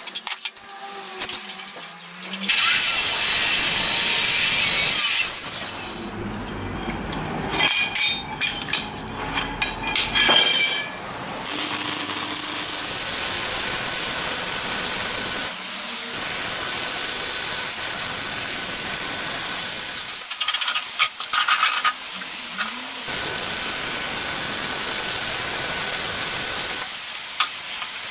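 A power tool running and working on material, in several stretches that start, stop and change; a steady high whine runs through the second half.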